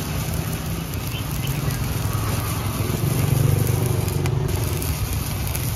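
Stick-welding arc from a Classic ZX7-200CL inverter welder burning a 2.5 mm electrode, crackling and hissing steadily, over a constant low hum.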